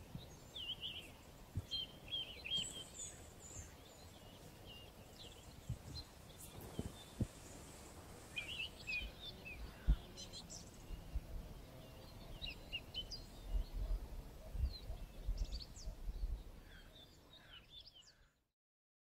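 Birds chirping and singing outdoors at dusk, many short calls overlapping, over an irregular low rumble. The sound fades and cuts to silence near the end.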